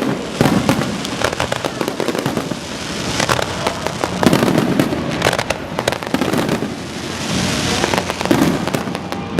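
Aerial fireworks display: a dense, irregular barrage of bangs and crackling pops. A crackling, hissing swell comes a little after the middle.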